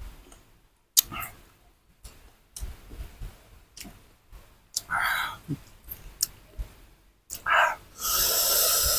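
Eating crisp young mango: scattered crunching bites and clicking chewing sounds. Near the end, a loud steady hiss of breath lasting about a second, blown through pursed lips against the chili heat.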